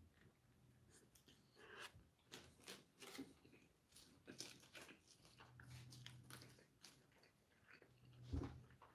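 Faint chewing and mouth sounds of a man eating a burger, with rustling of the paper wrapper and a single low thump near the end.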